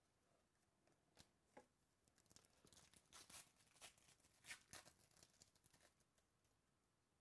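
Faint tearing and crinkling of a foil trading-card pack being ripped open, with a couple of light clicks first and then a run of crackling tears between about two and six seconds in.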